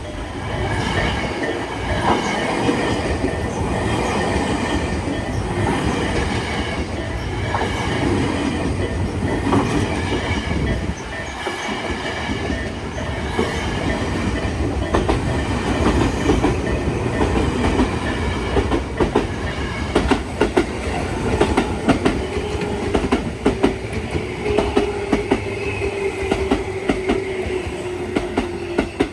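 A train running past, a steady rumble with the clickety-clack of wheels over rail joints. The clicks come thick and fast in the last several seconds, along with a whine slowly falling in pitch.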